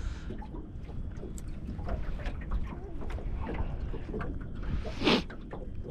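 Wind buffeting the microphone as a steady low rumble, with faint scattered ticks and a brief louder noise about five seconds in.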